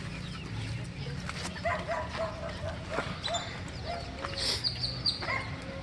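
A dog whimpering and yipping in quick runs of short, high calls, starting a little over a second in and coming again near the end, over a steady low hum.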